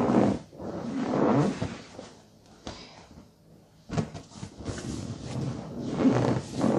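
An inflated exercise ball rubbing and squeaking against a cotton gi and the floor mats, with body bumps, as a man lifts it overhead and rolls over it. Two short bursts come near the start, it goes quieter in the middle, and a longer stretch of rubbing follows from about four seconds in.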